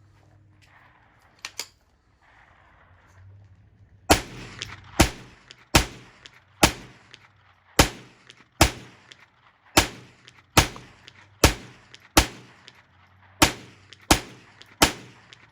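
Ruger 10/22 .22 rimfire semi-automatic rifle fired in a steady rapid string, about one shot every 0.8 s, roughly fourteen shots starting about four seconds in. Before the shooting, a couple of faint clicks.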